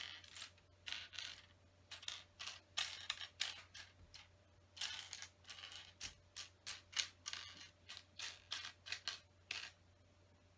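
Small plastic LEGO pieces clicking and rattling as a hand sifts through a loose pile, a long run of short irregular clatters that stops about a second before the end.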